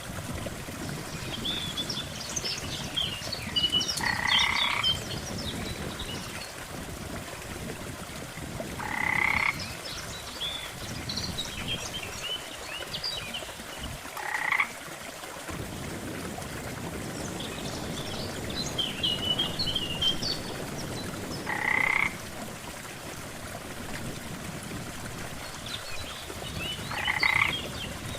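Frogs croaking at a lakeside: a louder croak about every five seconds, five in all, with smaller chirping calls between them, over a low steady background.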